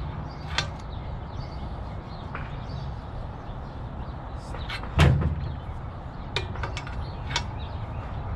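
Metal hand tools clinking and knocking against bicycle parts during a careful teardown, with a few light clicks and one loud knock about halfway through.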